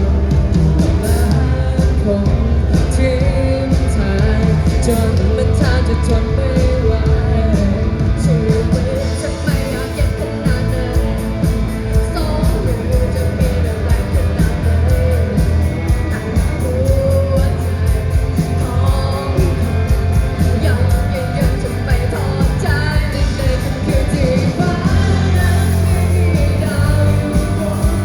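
Live pop-rock band performance: a singer's voice carrying the melody over loud bass and steady drums.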